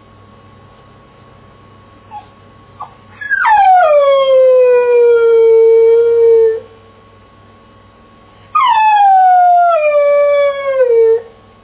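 A dog shut in its crate howling: two brief yips, then two long howls, each starting high and sliding down to a lower note that it holds before breaking off.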